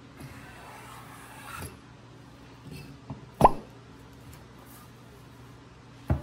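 A heavy walnut cutting board handled on a wooden workbench: one sharp knock with a brief ring a little past the middle, then a couple of duller thumps near the end as the board is tipped and moved.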